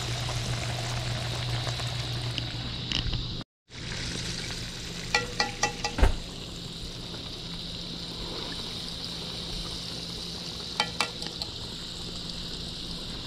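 Fish and hush puppies deep-frying in hot grease, a steady sizzling and bubbling hiss. A few light metallic clinks come around five seconds in and again near eleven seconds. The sound drops out briefly a few seconds in.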